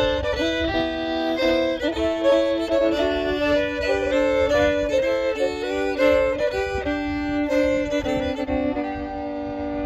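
Solo fiddle playing a bowed melody that settles into a long held note over the last couple of seconds.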